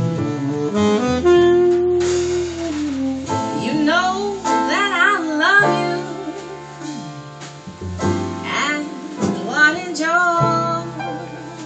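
Live slow jazz ballad: a tenor saxophone plays the melody with a wavering vibrato over piano, double bass and drums.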